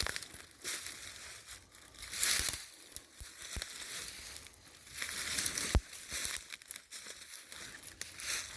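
Footsteps crunching and rustling through dry leaf litter and brush in irregular bursts, with a few sharp snaps.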